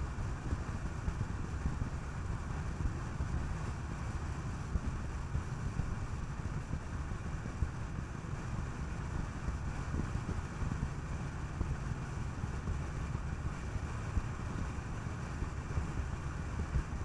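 Skoda Kodiaq driving at steady speed: a constant low rumble of tyres on the road and wind, with wind buffeting the microphone.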